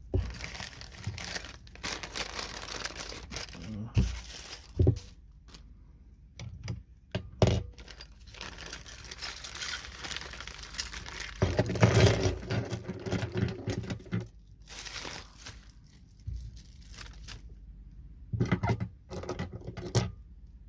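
Plastic packaging crinkling and tearing as small camera-mount parts are unwrapped by hand, with a few sharp knocks of parts being handled or set down.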